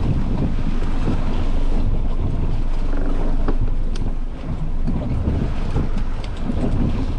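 Strong wind buffeting the microphone over rushing, splashing seawater on a small open boat in choppy ocean, a loud steady rumble throughout.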